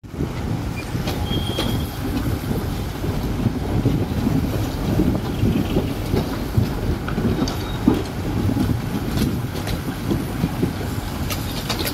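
Steady low rumble of a moving road vehicle heard from inside its cabin, with a few faint clicks and rattles.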